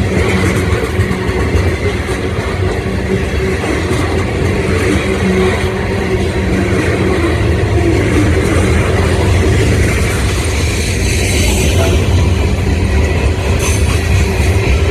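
Diesel freight locomotive running loud and close, a steady low engine drone throughout.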